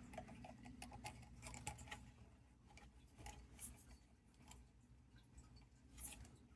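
Near silence with faint, scattered small clicks and taps of a 1/24-scale RC crawler's plastic parts being handled, as its steering and front end are worked by hand to check for play.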